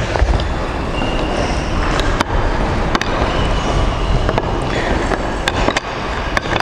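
Plastic rungs of an agility ladder clicking and scraping on a wooden floor as it is pulled straight by hand, a handful of sharp clicks over a steady loud rumbling noise.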